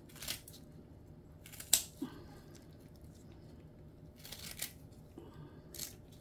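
Kitchen scissors snipping through napa cabbage kimchi: about four separate cuts, the loudest a little under two seconds in.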